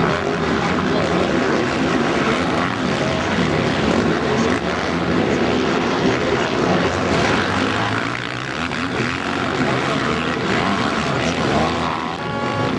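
Motocross bikes racing on a dirt track, engines revving up and down repeatedly as they take jumps and corners. A brief steady tone sounds near the end.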